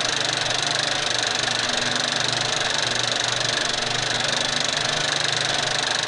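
Movie projector running: a steady, fast, even mechanical clatter.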